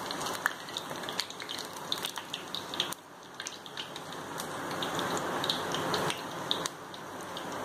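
A puffed puri deep-frying in hot oil in a steel kadai: a steady sizzle full of small crackling pops. The sizzle drops suddenly about three seconds in, then builds back up.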